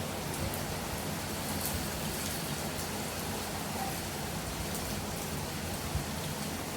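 Steady rainfall, an even hiss with scattered drops ticking on a surface and a small thump about six seconds in.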